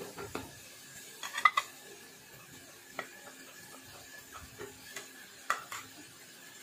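A wooden spoon scraping and tapping against a plate and a metal pan as chicken pieces are pushed off the plate into the spinach and stirred: a few scattered sharp clicks and knocks, the loudest about a second and a half in, over a faint background.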